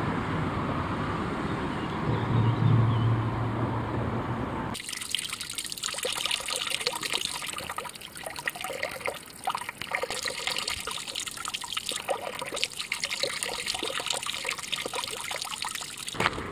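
For about the first five seconds, a steady rush of traffic from a motorway viaduct overhead, with a low engine hum swelling for a couple of seconds. Then it gives way abruptly to a thin stream of water from a wooden spout splashing into a mossy hollowed-log trough.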